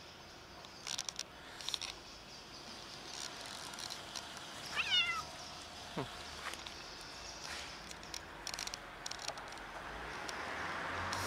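A cat gives one short, high meow about halfway through, amid scattered rustling of footsteps on dry leaves.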